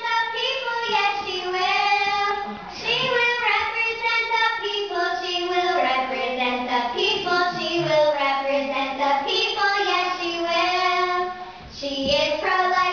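A high voice singing a slow melody unaccompanied, with long held notes and a brief break between phrases about a second before the end.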